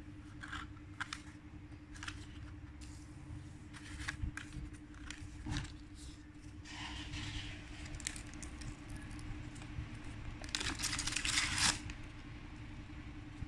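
Hands handling and folding a cardboard cockroach trap: scattered clicks and short rustles of stiff card, with a louder rasping stretch a little before the end as the backing paper is peeled off the trap's glue sheet. A faint steady hum runs underneath.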